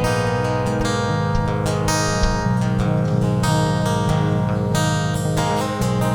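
Live band playing an instrumental passage without vocals: strummed guitar chords over a sustained low bass line, with frequent sharp percussive hits. The sound is a clean board feed taken straight from the mixing console.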